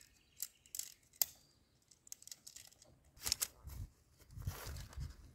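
A tent being packed by hand: a few light clicks and taps, then the tent fabric rustling and swishing in bursts as it is pushed down into its stuff sack.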